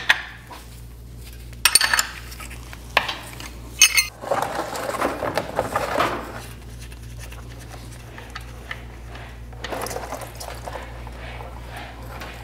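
Metal hand tools clinking sharply a few times in the first four seconds as the motorcycle engine's oil drain plug is worked loose, then a plastic drain pan is shuffled into place under it. Near the end, a soft steady rush as hot engine oil begins draining into the pan.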